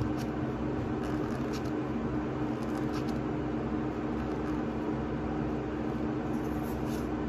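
A machine's steady hum holding one constant tone, with a few faint light clicks.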